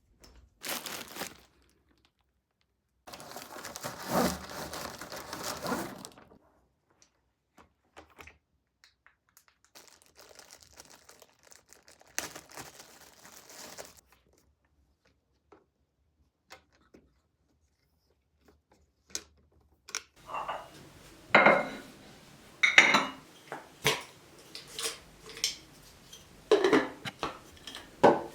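Household handling noises: a few seconds of rustling about three seconds in, then from about twenty seconds a run of sharp knocks and clinks.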